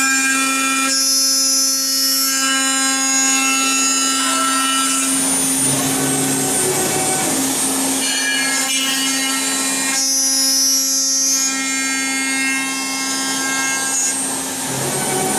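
CNC drilling-milling machine's spindle running and machining an aluminium profile: a steady hum with a high whine made of several tones, and two louder hissing spells, about a second in and again about ten seconds in.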